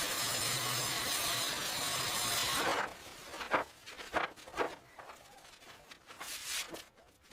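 Construction work on wood: a continuous rasping scrape lasts about three seconds, then a few sharp knocks and short scrapes follow.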